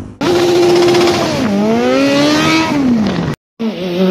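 Motorcycle engine revving, its pitch holding high, dropping about a second and a half in, climbing again and then falling away. It cuts off abruptly about three and a half seconds in, and another engine note starts right after.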